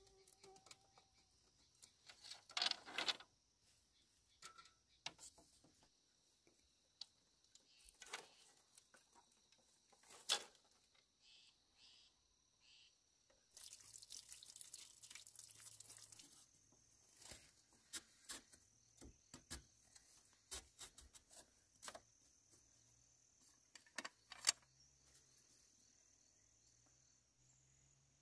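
Faint, scattered taps and knocks of handwork over a steady, high, faint chirring of forest insects, with a short rustling hiss about halfway through.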